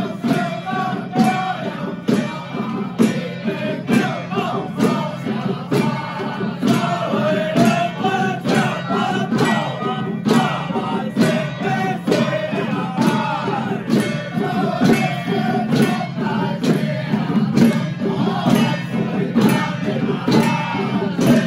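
A xiaofa ritual troupe of men chanting in unison, keeping a steady beat on small hand-held ritual drums struck with sticks.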